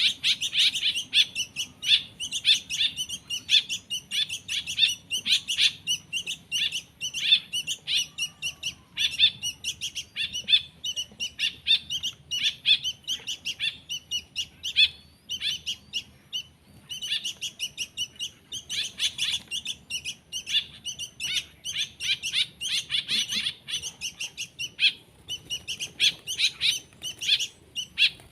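Young songbird chicks chirping in rapid, continuous high calls, thinning briefly about halfway through.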